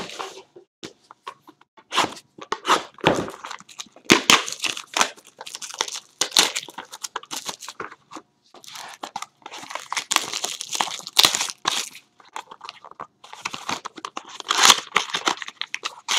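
A sealed trading card box being opened by hand: plastic wrap and packaging tearing and crinkling, with cardboard crunching, in irregular bursts and sharp clicks.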